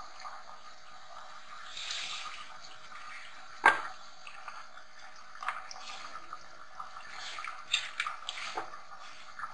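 A metal spoon clinking and scraping against a metal cooking pot as thick liver curry is scooped out onto a plate. One sharp clink just over a third of the way in is the loudest, with several lighter taps near the end.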